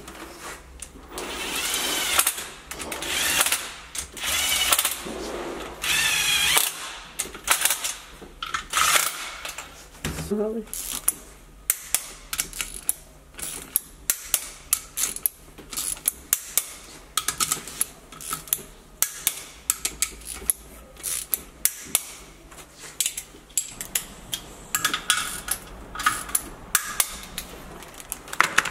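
Hand ratchet clicking in quick runs as bolts on a Subaru EJ22 boxer engine's aluminium crankcase are turned. In the first nine seconds there are several louder stretches of rasping noise.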